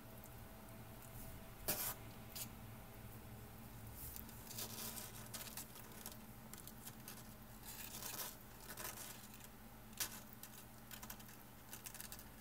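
Young kittens scuffling and wrestling, their paws and claws scratching and rustling on a blanket and cardboard box, with sharp knocks twice, about two seconds in and near ten seconds.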